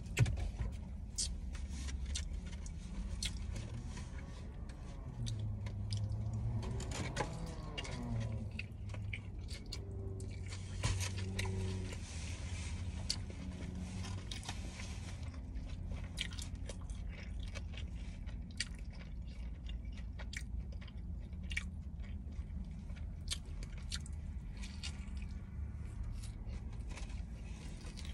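Close-miked chewing and biting of fast food, with many short wet clicks and crunches, over a low steady hum.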